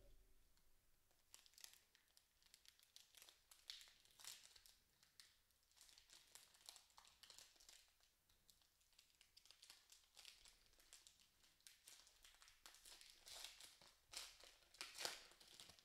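Foil wrapper of an Upper Deck hockey card pack crinkling and tearing as it is worked open by hand: faint, in many short crackles, loudest near the end.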